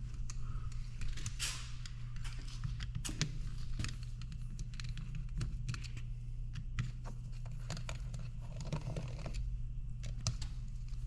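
Scattered light clicks and taps of hand tools and small parts being handled, over a steady low hum.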